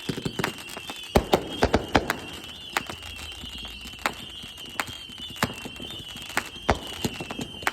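Consumer fireworks going off in a backyard: a rapid, irregular series of sharp bangs and pops, densest about one to two seconds in.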